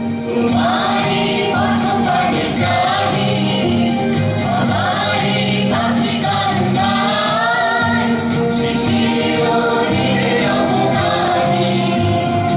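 A song with singing over instrumental accompaniment, carried on a steady beat and bass line.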